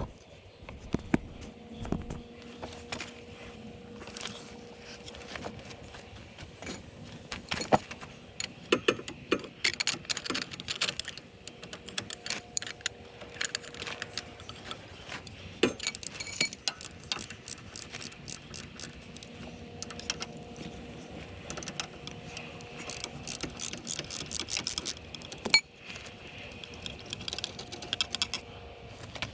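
Hand socket ratchet clicking in quick runs, with metal tool clinks, while working on the 12 mm bolts at the back of a UTV's front brake.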